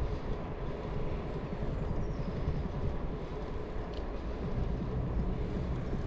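Steady rumbling noise of a bicycle ride: wind buffeting the microphone over the rolling of the bike, with a single faint click about four seconds in.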